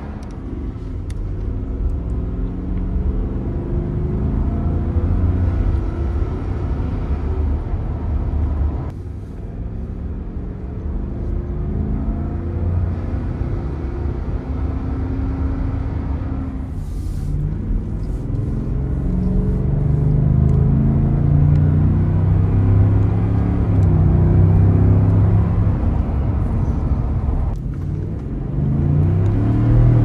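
Ford F-150's 5.0L V8 breathing through an S&B cold air intake, heard from inside the cab while driving. The engine note climbs under acceleration and drops back several times, getting louder in the second half.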